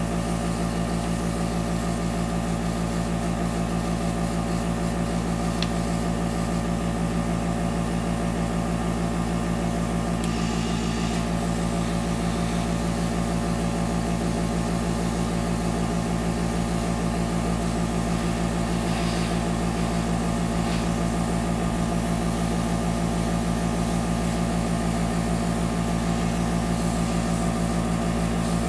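Small airbrush compressor running with a steady hum as the airbrush sprays water-based makeup through a stencil.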